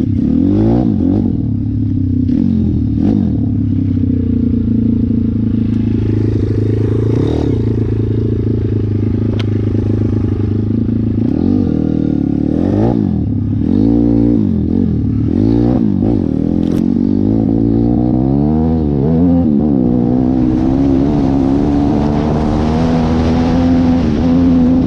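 Single-cylinder four-stroke engine of a YX 150 pit bike being ridden, its revs rising and falling over and over and holding steady for several seconds in the middle, with clattering and scraping. A hissing rush joins the engine near the end.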